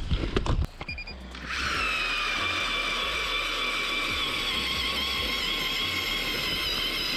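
StrikeMaster lithium battery ice auger drilling into lake ice: a steady electric motor whine that starts about a second and a half in, dips slightly in pitch as the bit bites, then holds level. A few handling clicks and a short beep come just before it starts.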